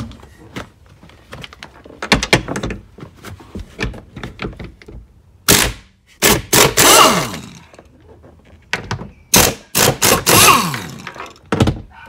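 A DeWalt power tool with a 15mm socket runs twice, about five and nine seconds in, backing out the rear bolts of a Ford Expedition's third-row seat. Its pitch drops during each run. Before that come clicks and knocks as the tool and socket are fitted to the bolt.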